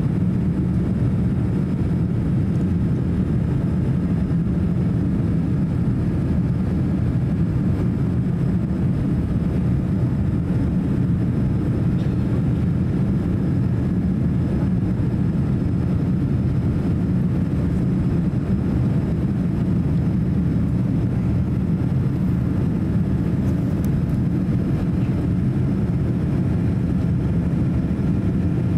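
Steady cabin noise inside a Boeing 787-8 airliner climbing out after takeoff: the even, low rumble and rush of its GEnx turbofan engines and the airflow over the fuselage, unchanging throughout.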